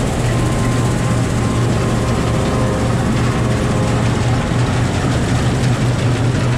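New Holland 8060 combine harvester running under load while cutting rye, heard from inside its cab: a steady heavy mechanical drone with a strong low hum and faint steady whining tones.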